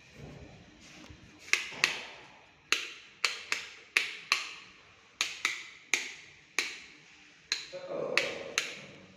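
About fourteen sharp knocks at uneven intervals, each ringing briefly as in a bare, echoing room.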